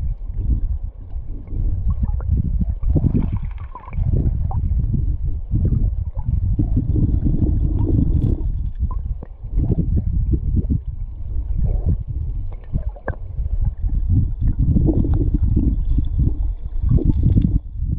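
River current rushing and gurgling past an underwater camera, a muffled low rumble that swells and dips every few seconds.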